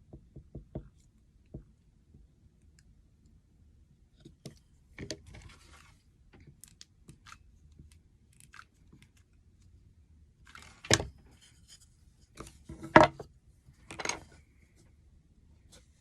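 Small wooden planks being handled and glued in place: scattered light clicks, rubs and scrapes, with three louder knocks in the last third.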